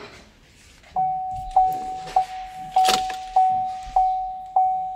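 2015 GMC Sierra's dashboard warning chime, a single-pitched ding repeating about every 0.6 s. It starts about a second in, with the ignition on and the key in. There is a brief rustle near the middle.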